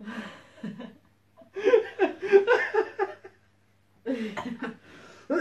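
A man and a woman laughing together in three bursts, the longest in the middle.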